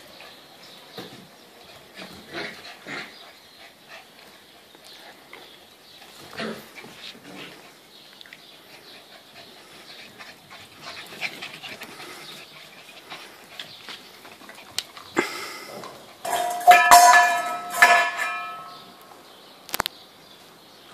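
Border collie puppies at play: faint scuffles for most of the time, then a loud run of high-pitched puppy yips about three-quarters of the way through.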